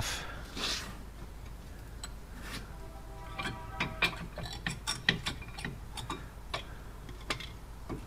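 Front brake caliper of a 2003 Volkswagen Transporter being worked off its disc and pads: a run of light, irregular metallic clicks and knocks, with a brief squeak about three and a half seconds in.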